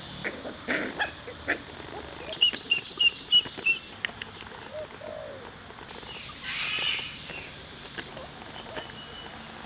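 Birdsong: a bird chirping in a run of short, evenly spaced calls about two and a half seconds in, and again in a denser burst about seven seconds in, over scattered soft knocks and rustles.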